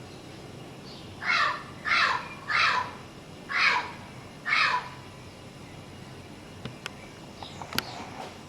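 A bird calling five times, short loud calls about a second apart, followed by a few sharp clicks near the end.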